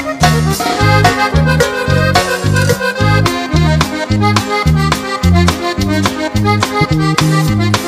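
Norteño band playing an instrumental passage: a button accordion carries the melody over drums and a bass line that alternates notes about twice a second.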